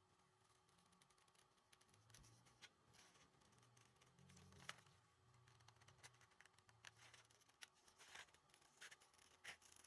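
Faint, scattered snips of scissors cutting paper, coming more often near the end.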